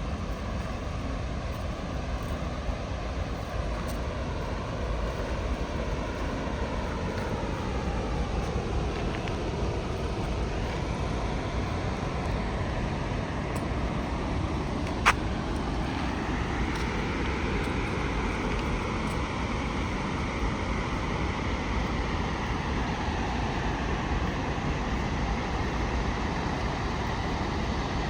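Chachai waterfall in monsoon flood, its falling water making a steady rushing roar. A single sharp click sounds about halfway through.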